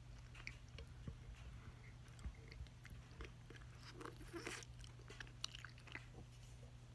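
Faint chewing and biting of a Twizzler licorice candy: soft, scattered mouth clicks and squelches, a few louder ones past the middle, over a steady low hum.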